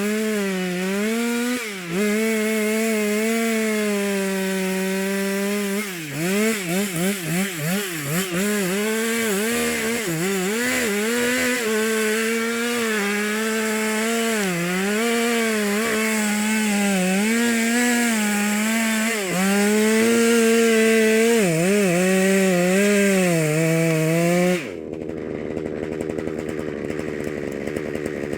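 Chainsaw engine running at high revs, its pitch dropping and recovering as the chain bogs in wood, with a quick run of throttle blips partway through. About 25 s in, an abrupt cut to a quieter, steadier chainsaw sound.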